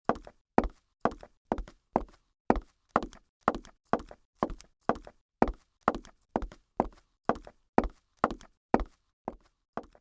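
A steady series of sharp taps or knocks, about two a second, like footsteps, growing fainter near the end.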